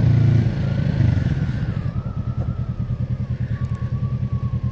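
Motorcycle engine running at low revs while riding, with a rapid, even putter and a faint whine that slowly falls in pitch as the bike eases off.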